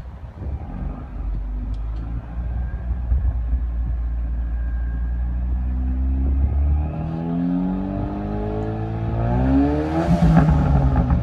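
2015 Ford Mustang's 2.3-litre EcoBoost turbocharged four-cylinder running with a steady low drone, then revving up: its pitch climbs from about six seconds in, peaks loudly near the end, and starts to drop.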